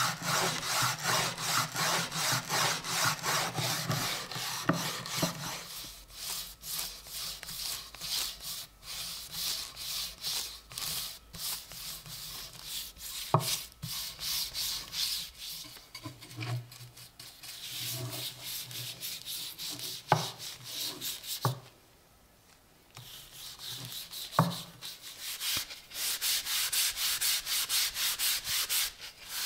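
Back-and-forth rubbing strokes along a wooden axe handle: a brush working dark stain into the wood, then a cloth wiping it near the end. A few sharp knocks come in the middle, with a short pause about two-thirds through.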